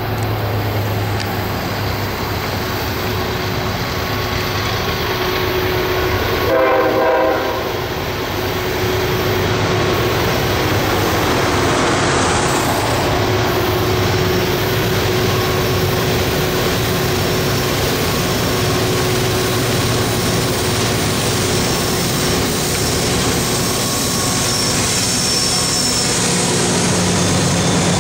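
Two CSX diesel locomotives working hard as they approach with a heavily loaded gondola train, their engines running in a steady low drone that builds as they near. One short horn blast sounds about seven seconds in and is the loudest moment. Near the end the lead locomotive passes close by.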